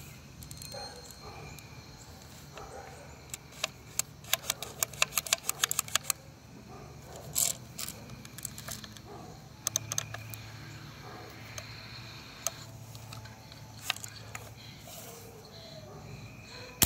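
Clicks and rattles of a BB gun being handled while a stuck BB is worked out: a quick run of sharp clicks a few seconds in, then scattered single clicks, and one loud sharp crack at the very end.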